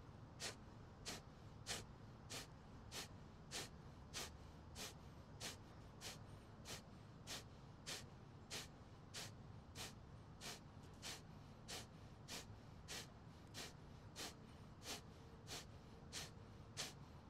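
Breath of fire: quick, forceful exhales through the nose in a steady even rhythm, a little under two a second, each a short sharp puff of air.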